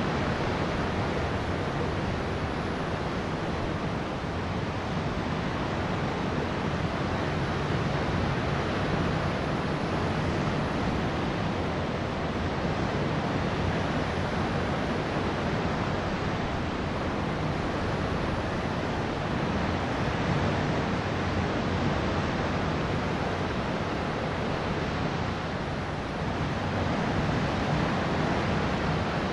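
Steady rush of sea waves and wind, swelling and easing slightly, with a low steady hum underneath.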